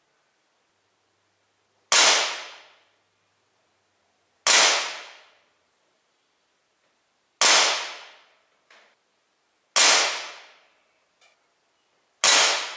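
Five shots from an ASG Dan Wesson 715 CO2 pellet revolver, sharp cracks each fading over under a second, with two faint clicks between the later shots.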